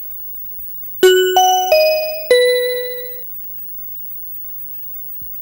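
A four-note chime jingle marking the start of a new section: bell-like struck tones, a low note, a jump up, then two notes stepping down, each ringing and fading, the last dying away about three seconds in. A faint steady hum runs underneath.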